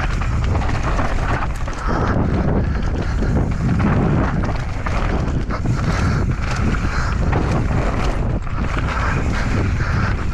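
Mountain bike descending a dirt trail at speed: wind buffeting the rider-mounted camera's microphone in a continuous rumble, with tyre noise and scattered knocks and rattles from the bike over rough ground.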